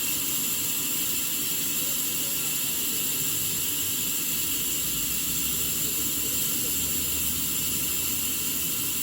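Sawmill saw running steadily: a constant mechanical noise with a high-pitched edge and an underlying rumble, unchanging in level.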